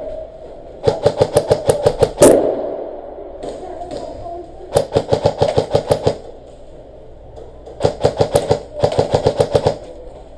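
Airsoft guns firing in rapid bursts, about eight shots a second: four bursts of one to one and a half seconds each, with one louder crack closing the first burst.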